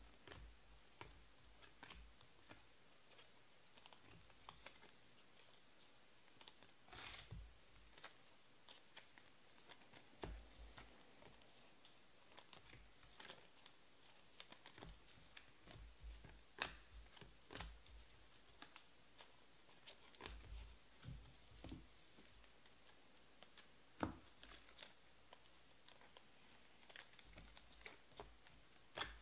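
Near silence: room tone with faint, scattered clicks and a few short soft rustles at irregular moments.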